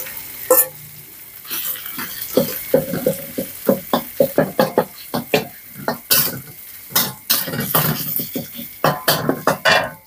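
A metal spatula scrapes curry paste out of a steel bowl, then stirs and scrapes it around a wok of frying garlic: quick, repeated strokes of metal on metal over the sizzle of frying.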